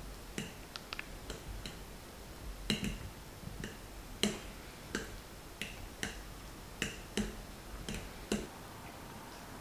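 Light, irregular clicks and clinks of cutlery against dishes, about two a second, stopping shortly before the end.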